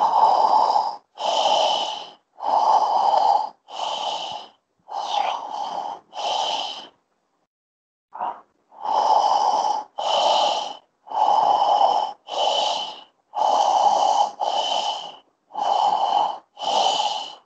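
A man taking quick, forceful breaths through his open mouth, about one a second, with a short pause about halfway through: a breathing exercise for stammering therapy.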